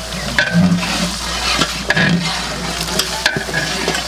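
Chopped vegetables sizzling in hot oil in a large cooking pot, stirred and scraped several times.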